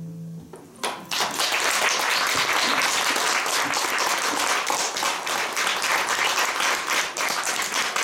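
The final chord of an acoustic guitar song rings out and fades, then audience applause breaks out about a second in and carries on steadily.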